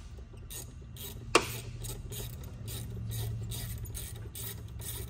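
Hand ratchet wrench clicking in short strokes, about three clicks a second, with one sharper click about a second in, as a stuck fitting is worked on. A steady low hum underneath.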